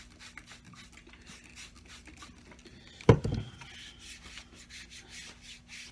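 Faint spritzes and rustling of a plastic trigger spray bottle wetting leather shoe soles to make them supple, with one sharp thump about three seconds in as the bottle is set down on the workbench, followed by hands rubbing the wet sole.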